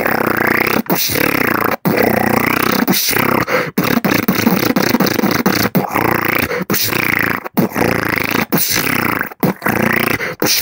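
Vocal beatboxing into a microphone: a fast, continuous run of mouth-made drum sounds, broken by short gaps about once a second, with swooping rising and falling vocal glides woven in.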